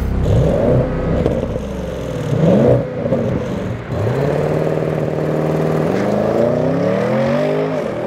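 Audi S8's 4.0 TFSI twin-turbo V8 revving. Its pitch climbs and drops twice in the first few seconds, holds steady for a while, then climbs again near the end before dropping suddenly.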